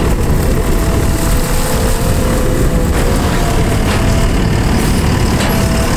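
JCB 270T compact track loader's diesel engine running steadily and loudly under work, with faint thin tones over the engine noise.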